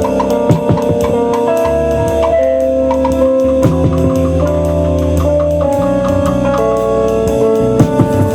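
A band playing a song live: a drum kit keeping a steady beat under held keyboard chords and low sustained notes.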